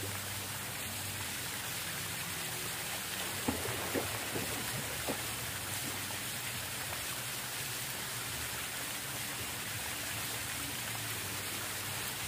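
Steady hiss of falling water, with a few short knocks or splashes about three to five seconds in.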